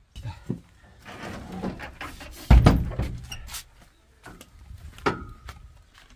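Handling noise: rustling and a series of knocks, with one heavy thump about two and a half seconds in and a brief squeak about five seconds in.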